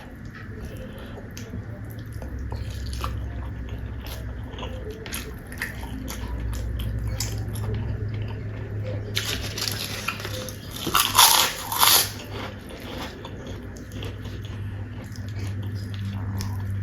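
Close-up eating sounds: chewing with small wet clicks, then a loud stretch of crunchy bites and chewing from about nine to twelve seconds in.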